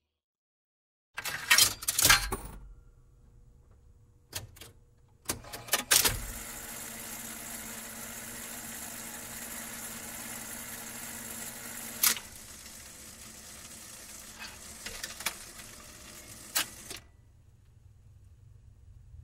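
Jukebox sound effect: a few sharp clunks and clicks of the coin and selection mechanism, then a steady crackling hiss over a faint hum with a few pops, as of the record mechanism running and the needle on the disc surface. It cuts off about two seconds before the end.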